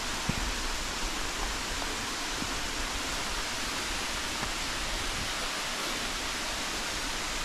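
Mountain stream rushing steadily, an even hiss of running water with no change in level.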